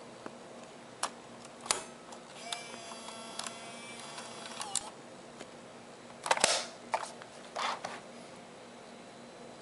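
Sony Hi8 Handycam camcorder being handled: sharp clicks, a short mechanical whine of about two seconds, then louder rustling bumps of hands on the camera body.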